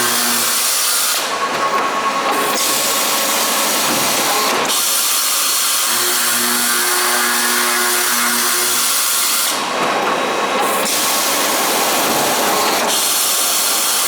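CNC pipe-cutting machine running through its cutting cycle on 21mm pipe. It makes loud, continuous machine noise that changes in a repeating pattern about every eight seconds, with a steady motor hum heard between the harsher stretches.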